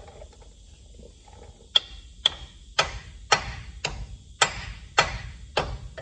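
Eight hammer blows on a truck's steel front steering knuckle, about two a second, starting a little under two seconds in. The first strikes leave a short high metallic ring.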